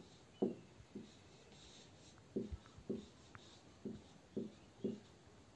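Marker pen writing on a whiteboard: about seven short, separate strokes at an uneven pace as letters are written.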